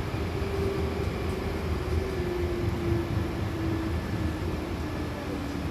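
Hankyu Kyoto Line commuter train heard from inside the car: steady low rumble of the running train, with a whine that falls slowly in pitch as the train slows on the approach to a station.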